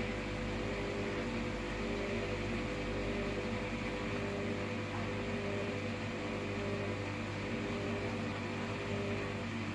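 Hoover washer-dryer running a cotton 90 with extra dry programme, its fan and drum motor giving a steady hum with a constant whirr through the drying stage.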